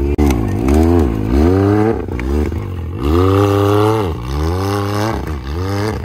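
Can-Am Maverick X3 turbo side-by-side's engine revving up and down in about five throttle bursts under load as it climbs over logs, the longest surge held about three seconds in.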